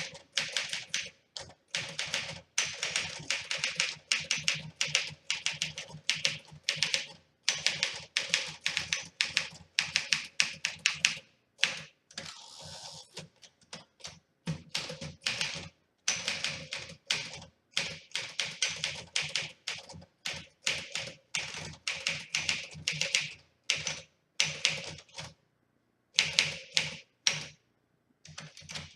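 1956 Smith Corona Silent Super manual typewriter being typed on: runs of rapid keystrokes as the typebars strike the platen, broken by short pauses, from a freshly serviced machine that types as it should.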